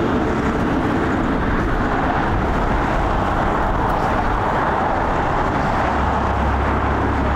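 Jet airliner engine noise at the airport, a steady broad roar with a deeper rumble building about six seconds in.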